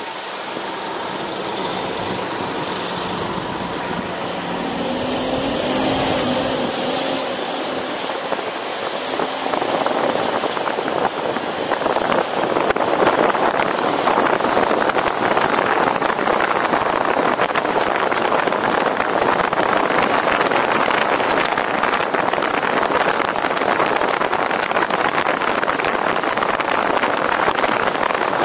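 Road and wind noise of a moving car, heard from a camera mounted on its roof: a steady rush that grows louder about ten to twelve seconds in and then holds.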